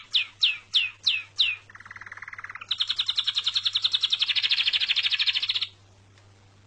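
A songbird singing. It gives a quick series of six down-slurred whistles, then a lower buzzy trill, then a fast high trill lasting about three seconds that stops abruptly.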